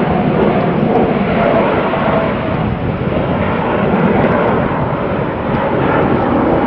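Loud, steady aircraft engine noise: an even rush with no clear rise or fall.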